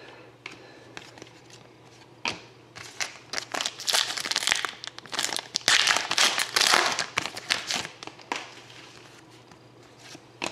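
A trading card pack wrapper being torn open and crinkled by hand, a run of dense crackling in the middle few seconds.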